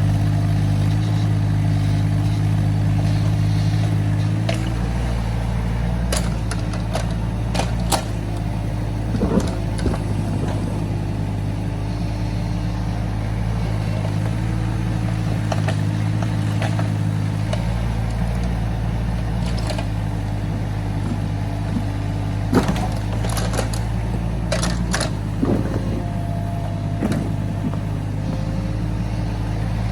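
Excavator engine running steadily while it digs. Sharp knocks and clanks are scattered over it, bunched about a fifth of the way in and again past two-thirds.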